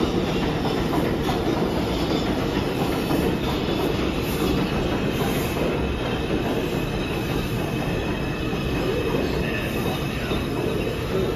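New York City subway train on the IRT Lexington Avenue line running through the station, a loud steady rumble of wheels on rail, with a faint high wheel squeal coming in near the end.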